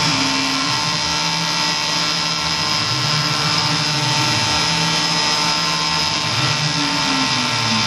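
Tormach PCNC 1100 CNC mill machining aluminum stock: a steady high spindle whine, with lower motor tones that rise and fall every second or two as the axes speed up, slow and change direction.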